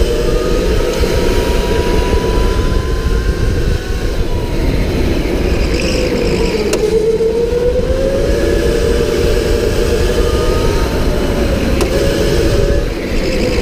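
Electric indoor go-kart's motor whining at speed, heard from the kart, over a steady low rumble. The whine's pitch sags as the kart slows for a corner about six seconds in and again near the end, and rises again as it accelerates out.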